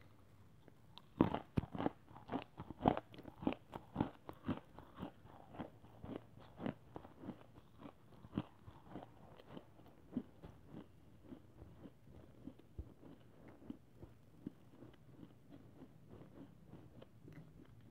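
A person chewing a bitten-off mouthful of crunchy white khadi clay, described as smoky: a rapid run of dry crunches, loudest and densest in the first few seconds, then softer and more spaced out as the mouthful breaks down.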